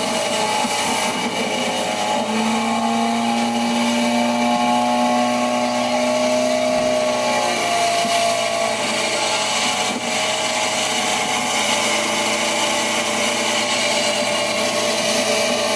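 Motorboat engine running steadily, its hum wavering in pitch for a few seconds, under a constant rush of wind and water noise.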